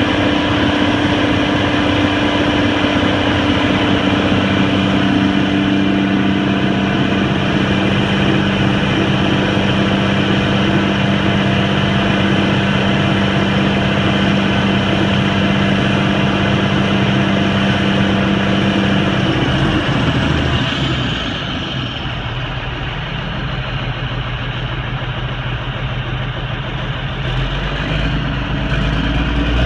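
1997 Peterbilt concrete mixer truck running, its engine driving the mixer drum, with a steady hum. About two-thirds of the way through, the steady tones drop away and the sound quietens, with a high whine falling in pitch as the drum changes direction, then it builds again near the end.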